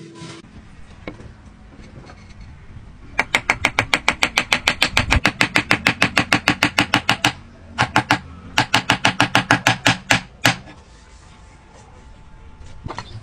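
A hammer tapping a wooden joint home with rapid, even light strikes, about eight a second. The strikes come in three runs with short pauses between them.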